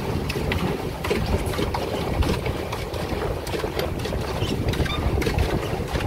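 Pedal boat under way, its paddle wheel churning and splashing water as it is pedalled, over a low rumble of wind on the microphone.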